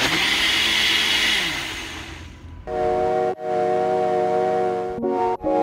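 Ninja personal blender switched on, its motor running hard on a shake, then spinning down and stopping after about two seconds. Steady music with held chords comes in near the middle.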